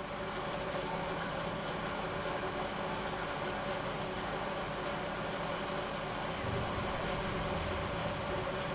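A steady mechanical hum with several steady tones running through it, a little stronger in the bass late on.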